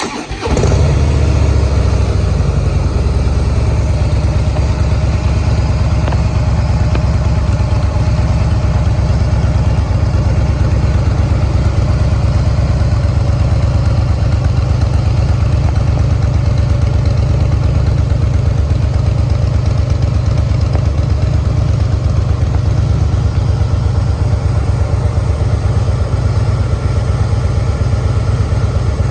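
Harley-Davidson Fat Boy V-twin with Screaming Eagle performance exhaust pipes (with catalytic converter) starting up, then settling into a steady, loud idle.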